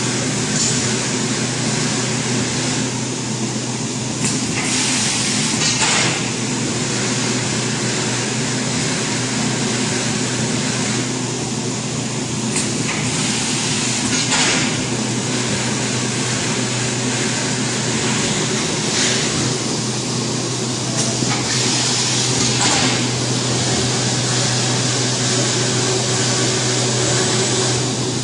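EPE foam laminating machine running: a steady low hum under a constant hiss, with louder hissing swells every few seconds.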